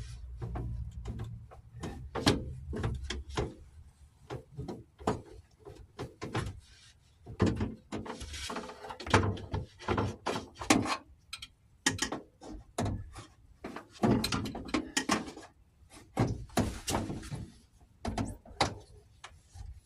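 Irregular knocks, clunks and scrapes of a replacement window glass pane being worked down into the channels of a Jeep Cherokee XJ front door, the glass and door hardware knocking against the metal door shell, with a couple of longer scraping stretches.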